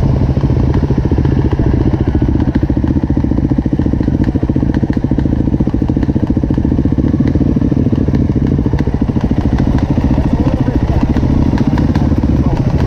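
Dirt bike engines running steadily at low revs, a close engine note with a fast even pulse and a few small clicks and clatters over it.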